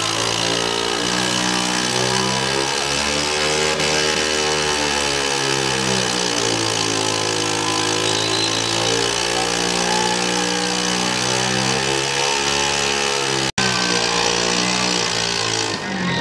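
Scooter engine held at high revs while its rear tyre spins against the ground in a burnout, the engine pitch slowly rising and falling several times. The sound drops out for an instant near the end.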